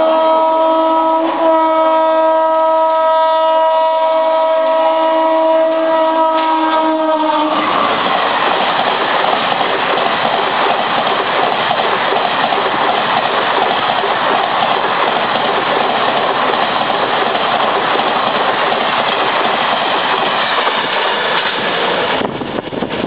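Indian Railways Duronto Express running through a station at speed. The locomotive horn holds one long steady blast and cuts off about seven seconds in. Then comes the loud rush of the coaches passing close on the near track, which drops away near the end.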